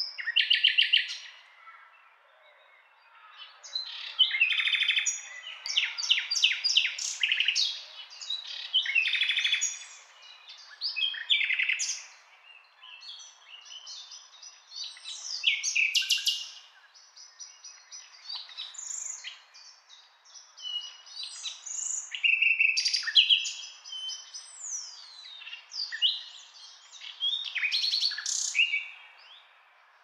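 Nightingale singing: phrases of fast repeated notes, rattling trills and whistles, each a second or two long, separated by short pauses.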